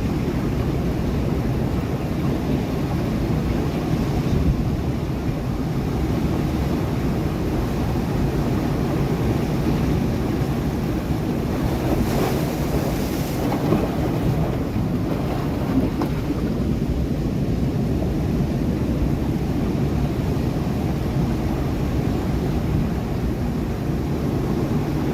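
Sea waves breaking against rocks: a steady low roar of surf, with one brighter splash of a wave hitting the rocks about halfway through.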